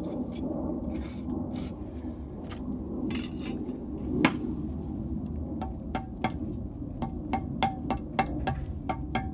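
Steel masonry hand tools, a trowel and tuck pointer, tapping and clinking against each other and the brick, with one louder knock about four seconds in and a quick run of light ringing taps in the second half, over a steady low background rumble.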